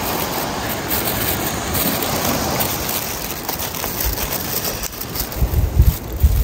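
Aluminium foil crinkling and rustling as it is folded shut into a packet, with a few low thumps near the end.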